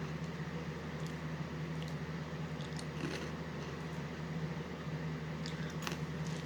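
Dry Trix cereal pieces being chewed, heard as a few faint crunches over a steady low hum.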